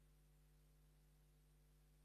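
Near silence: only a faint, steady hum and hiss with no other sound.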